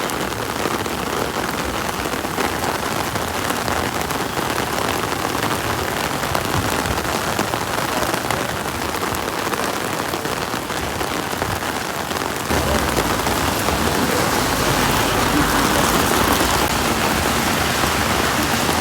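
Heavy rain pouring down in a steady hiss, growing louder and fuller about two-thirds of the way through.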